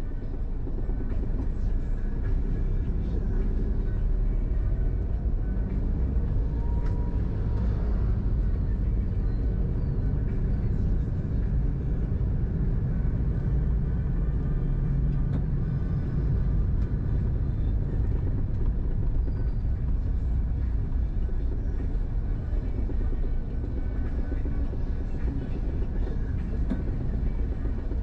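Steady low rumble of road and engine noise inside a moving car's cabin, with no sharp events.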